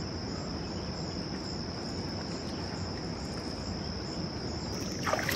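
Insects chorusing in the riverside trees: a steady, unbroken high trill over a low, even rush.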